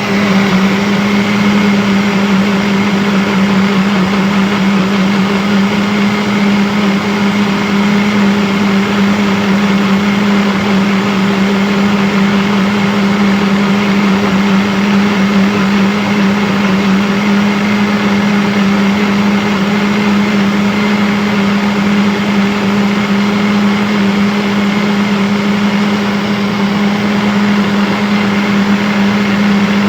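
Electric blender motor running at one constant speed: a steady low hum under a dense whir, unchanging throughout.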